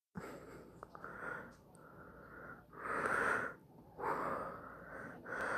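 A person breathing close to a phone's microphone: a series of soft breaths, the loudest about three seconds in.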